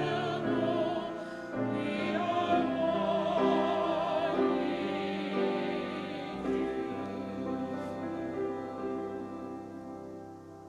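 Classical-style sung music: a voice with wide vibrato over sustained accompaniment, the final notes dying away near the end.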